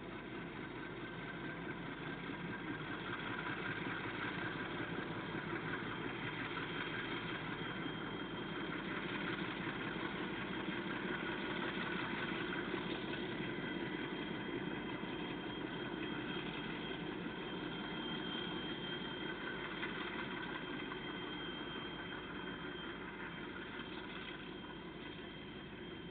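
Diesel-electric freight locomotives running steadily as they haul a short train of empty flat wagons slowly past. The engine sound builds up and grows louder toward the middle, then eases off near the end.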